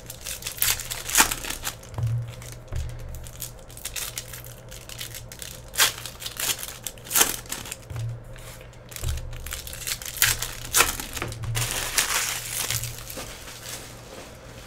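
Foil wrappers of Panini Prizm basketball card packs crinkling and tearing as the packs are ripped open and handled, in irregular crackles that die down near the end.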